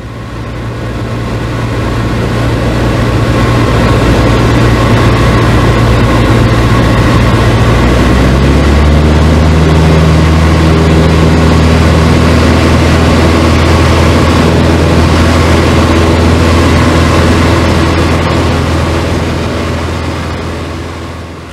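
Small Cessna's four-cylinder piston engine and propeller running steadily, heard inside the cabin. About eight seconds in the engine note changes and settles lower. The sound fades in at the start and out near the end.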